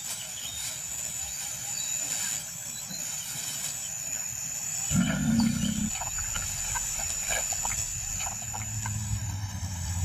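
A lion gives a single low growl, about a second long, halfway through, over a steady high whine. A low steady hum starts near the end.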